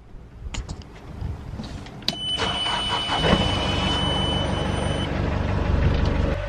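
A few switch clicks on a catamaran's engine panel, then the panel's warning buzzer sounds a steady high beep for about three seconds as the engine starts. The engine settles into a steady run.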